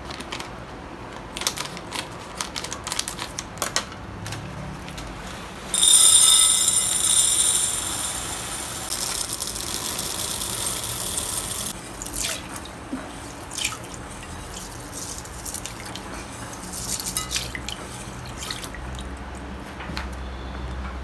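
A plastic bag crinkling as it is snipped open with scissors, then dried mung beans pouring into a glass bowl in a loud, dense rattle for about six seconds. This is followed by lighter clicks and water sounds as the beans are covered with water.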